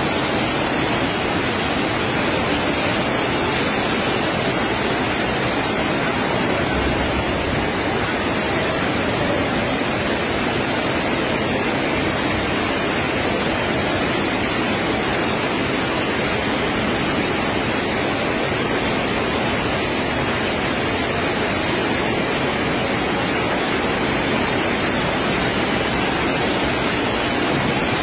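Floodwater rushing across a railway station and pouring over the platform edge onto the tracks, a steady, unbroken rush of water.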